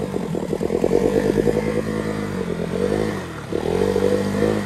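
Motorcycle engine revving hard while the bike is stuck in a stony river crossing and cannot move forward. The revs sag a little past the middle, then climb again.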